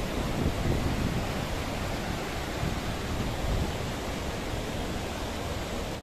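Rushing white water of a rocky mountain stream: a steady, unbroken rush, deepest in the low end.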